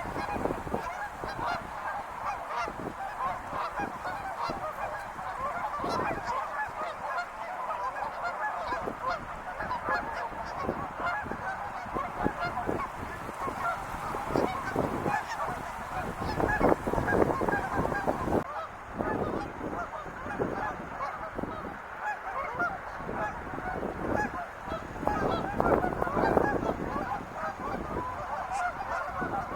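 A flock of wild geese honking continuously, with many calls overlapping and swelling louder a couple of times.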